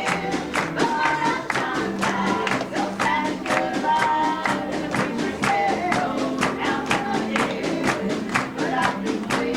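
Live gospel song: voices singing with guitar, bass and piano accompaniment, over a steady beat of sharp strokes about three times a second.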